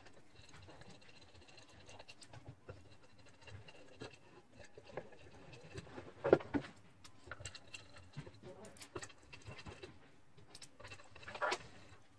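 Small parts and tools being handled during a disc-sander build: scattered light clicks and scrapes, with a louder double knock about six seconds in.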